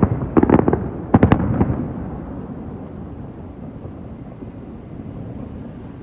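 Aerial fireworks bursting: a quick run of sharp bangs and crackles in the first second and a half, then a low rumbling echo that slowly dies away.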